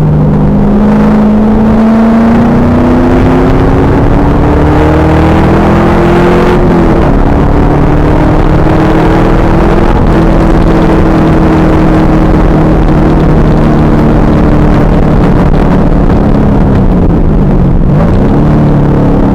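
2000 Pontiac Trans Am Firehawk's 5.7-litre LS1 V8 running hard: the revs climb, drop briefly with a shift about six and a half seconds in, hold steady for about ten seconds, then dip sharply and climb again near the end. The recording is loud and distorted.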